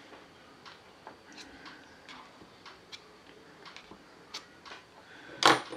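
Light, irregular metallic clicks and taps as small valve parts of a Crosman 357 pellet pistol are handled and pressed into the valve body with a tool, with one louder clack near the end.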